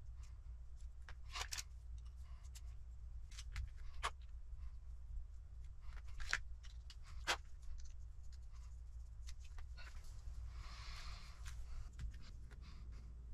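Small plastic RC car kit parts and hand tools being handled on a work mat: a few sharp clicks and taps, and a short rustle about ten to eleven seconds in, over a steady low hum.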